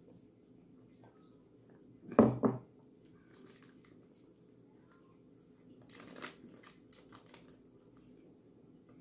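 Plastic snack wrapper crinkling as it is pulled open, in a run of crackles about six seconds in. Earlier, about two seconds in, a loud double thump, the loudest sound here.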